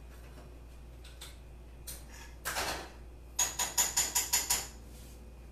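Gas hob's electric spark igniter clicking rapidly, about eight clicks in a little over a second, to light a burner under a saucepan. A short clatter comes just before the clicks.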